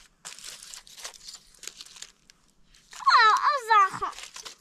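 Crinkling, rustling handling noise, then about three seconds in a loud, high-pitched voice calls out for about a second, its pitch wavering and falling.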